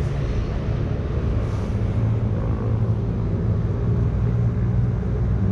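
Engine idling steadily: a continuous low rumble that holds one pitch.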